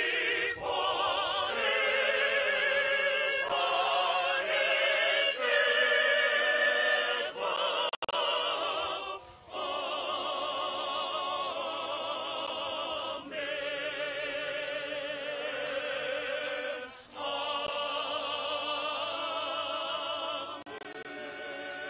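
A group of voices singing together, with long held notes that waver with vibrato, in phrases of a few seconds with short breaks between them.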